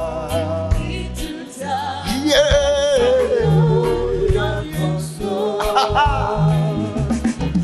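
Church congregation singing a gospel worship song, several voices over a steady beat with low accompanying notes.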